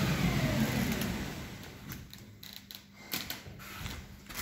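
A machine running down, its pitch falling and its level fading over the first second or two. Then come scattered light clicks and knocks over a faint steady hum.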